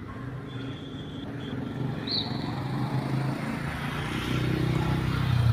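A motor vehicle's engine approaching, getting steadily louder and loudest near the end, over street background noise.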